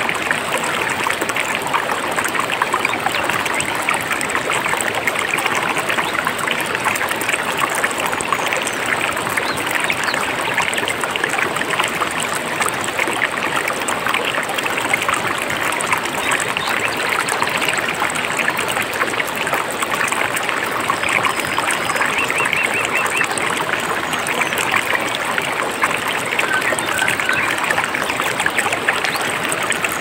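Mountain stream flowing steadily, with a few faint bird chirps in the second half.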